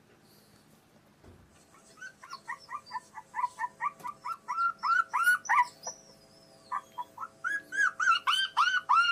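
A phone ringtone playing rapid, evenly spaced chirping notes, about four a second, after a quiet start; it breaks off briefly past the middle, then resumes faster.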